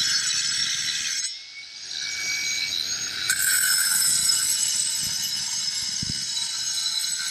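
Milwaukee cordless angle grinder with a cutting disc cutting the raised rib off a clay coping cap: a steady high whine with gritty grinding. The cut drops away for a moment just over a second in, then the grinder bites back into the clay and runs at full cut about three seconds in.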